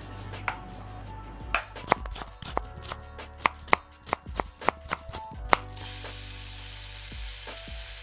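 Background music over a run of about a dozen sharp knocks or clicks, irregularly spaced and stopping about five and a half seconds in, followed by a steady hiss.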